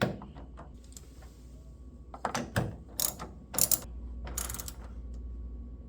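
Ratchet wrench clicking in several short bursts as it tightens the door handle's mounting bolts down to snug.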